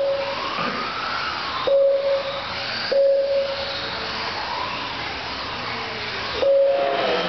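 Mini-Z RC cars' small electric motors whining up and down over a steady hiss as they lap a carpet track, with a lap-timing system beeping three times in single steady tones as cars cross the line.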